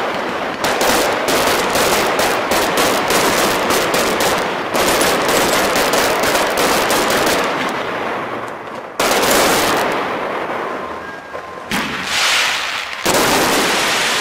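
Fireworks display: a rapid string of sharp bangs, then heavier bursts about five, nine and thirteen seconds in, each one dying away over the following seconds.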